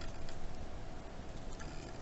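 Crochet hook and yarn being worked in single crochet: faint irregular ticks and rustling, over a thin steady hum.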